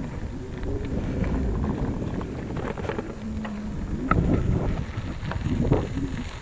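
Wind buffeting an action camera's microphone on a moving bicycle, over the low rumble of tyres on a rutted dirt track, with scattered knocks and rattles from the bumps.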